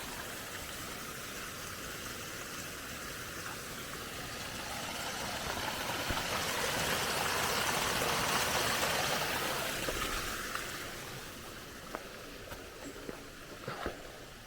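Running water from a small stream, a steady rushing hiss that grows louder for a few seconds mid-way and then fades, with a few light ticks near the end.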